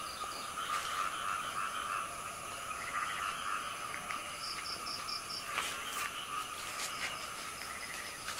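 Night chorus of frogs and insects: a steady, dense calling with short runs of quick high pulses now and then.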